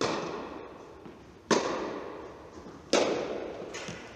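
Tennis rally: three sharp racket strikes on the ball, about a second and a half apart, each ringing on with a long echo in the indoor tennis hall. A few fainter knocks follow near the end.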